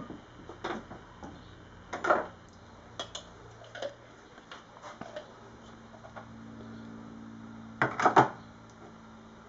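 Metal spoon scraping and clinking against a jar of freshly churned butter: scattered knocks and clicks, with a quick cluster of taps about eight seconds in as butter is knocked off the spoon into a plastic tub. A faint steady low hum comes in just past the middle.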